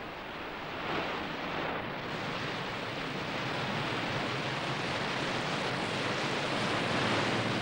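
Rushing, foaming sea water of a ship's bow wave as the hull pushes through the sea: a steady wash that grows slightly louder.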